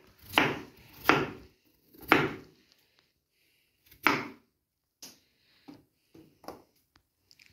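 A knife slicing through a raw potato and striking a wooden cutting board: four sharp knocks in the first four seconds or so, then a few fainter taps.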